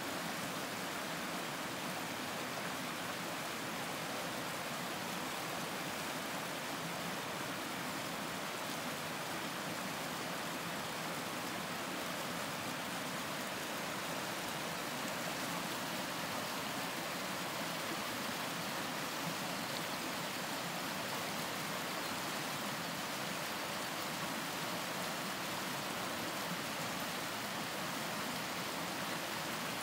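A small stream running over stones: a steady, even rush of flowing water.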